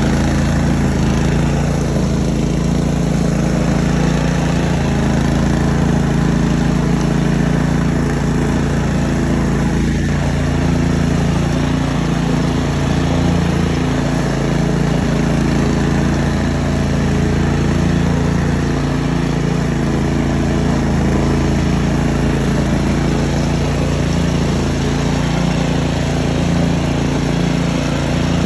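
DR Field & Brush Mower's engine running at a steady, unchanging speed.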